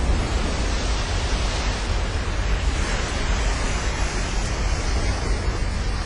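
Steady rushing noise of a huge wave breaking, with wind rumbling on the microphone underneath.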